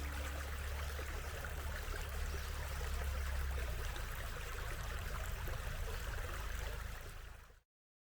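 Steady rush of running water, like a stream, with a strong low rumble beneath it; the last of the background music fades out just at the start, and the sound cuts off abruptly near the end.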